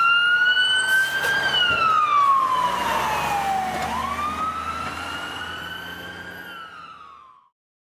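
Siren wailing, its pitch slowly rising and falling twice, then fading and cutting off near the end.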